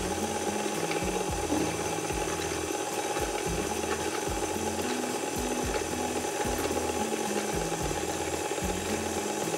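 Background music with a steady low beat and a stepping bass line.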